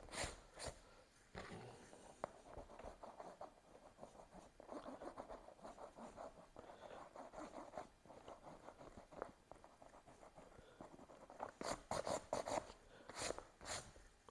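Faint handling noise: rubbing and scraping with scattered light clicks, and a cluster of sharper clicks and knocks near the end.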